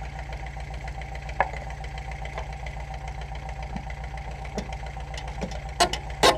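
An engine idling steadily, with a few sharp metallic clinks of a ratchet and socket on the engine-mount bolts; the loudest two come close together near the end.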